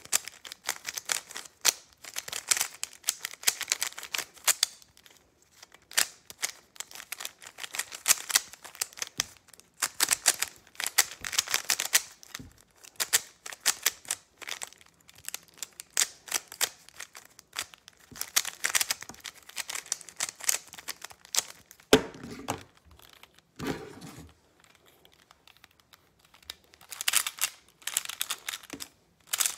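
A plastic 3x3 Rubik's cube, then a pyraminx, being scrambled by hand: rapid clacking of the layers turning, in bursts with short pauses. A couple of louder knocks come about three-quarters of the way through.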